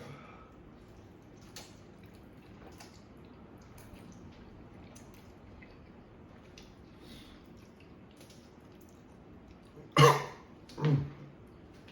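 Faint mouth noises of eating noodles, small smacks and slurps, then two loud coughs about ten seconds in, a reaction to the burn of extremely spicy instant noodles.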